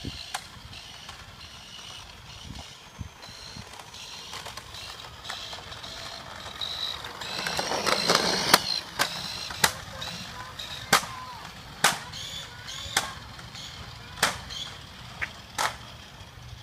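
Razor E100 electric scooter's hub motor and chain whining, growing louder as it passes close by with two riders about halfway through. After that come sharp clicks, roughly one a second.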